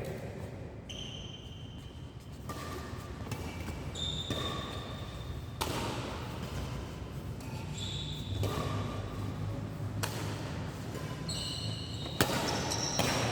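Badminton play on an indoor court: sharp racket hits on the shuttlecock every second or two, mixed with short high squeaks of shoes on the court floor.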